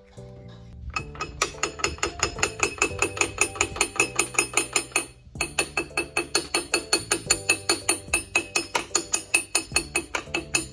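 Rapid metallic tapping on a car's air-conditioning compressor clutch and pulley, about five sharp ringing strikes a second, with a short break a little past halfway.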